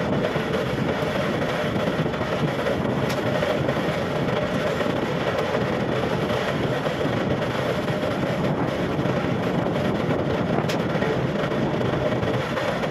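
Wood lathe running while a hand-held chisel cuts a spinning wooden spindle: a steady machine hum under a continuous scraping hiss of the tool on the wood.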